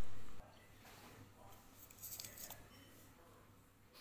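Kitchen handling around a metal rice cooker pot: the fading end of a loud clatter of cookware in the first half-second, then quiet with a few faint light clicks about two seconds in.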